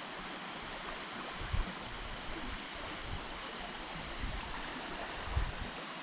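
Steady rushing of a small waterfall, an even hiss of running water, with a soft low bump about a second and a half in.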